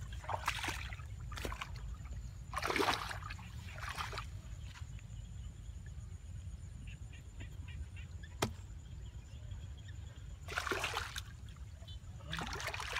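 Water splashing and sloshing in short bursts a few seconds apart, with a single sharp click about eight seconds in.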